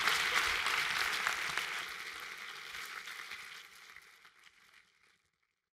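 Audience applauding in a large hall, dying away over about five seconds.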